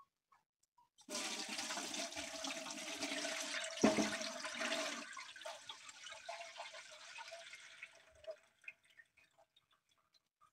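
Brown soaking liquid of crushed juniper berries poured through a fine-mesh strainer: a steady gush starting about a second in, a single knock about four seconds in, then thinning to a trickle and a few drips.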